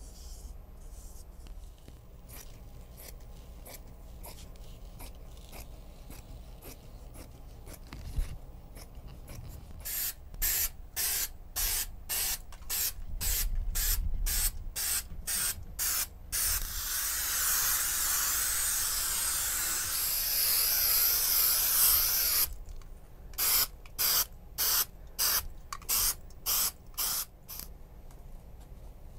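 Aerosol can of spray adhesive hissing: after some faint handling noise, a run of short squirts about two a second, then one long spray of about six seconds, then another run of short squirts.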